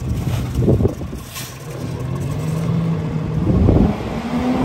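Rear-loader garbage truck's engine running and revving up as the truck moves off, its pitch rising then settling, with two brief louder rushing bursts, one under a second in and one near the end.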